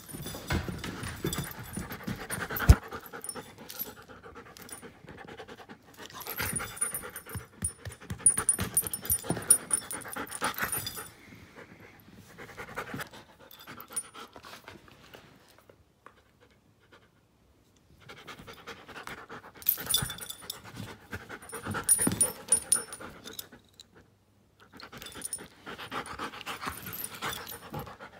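Giant schnauzer panting in spells, with short quiet pauses between. A single sharp knock comes about three seconds in.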